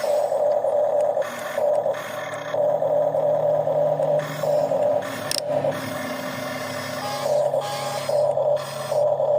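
Radio-controlled model excavator's electric motors whining, cutting in and out in short irregular spurts as it works, over a lower steady hum that shifts pitch about halfway through.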